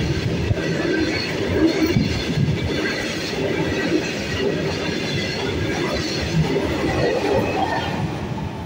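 Freight train's open steel wagons rolling past at speed: wheels rumbling and clattering on the rails, with faint high wheel squeals. The noise starts to fall away near the end as the brake van, the last vehicle, goes by.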